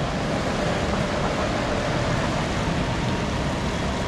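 Scania V8 diesel truck engine running steadily, with road noise.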